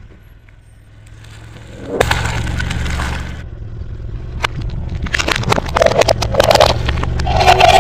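Car tyre rolling slowly over small objects on asphalt and crushing them: a low rumble of the car sets in about two seconds in, followed by a run of sharp cracks and crunches of breaking plastic and crumbling food.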